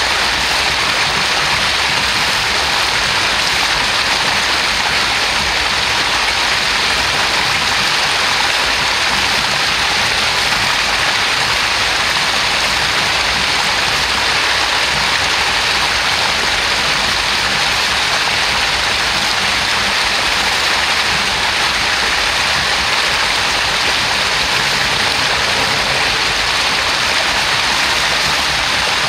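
A small spring-fed stream, just risen from an underground cavity, spilling over a rock lip in a short cascade. The water makes a steady, unbroken splashing rush.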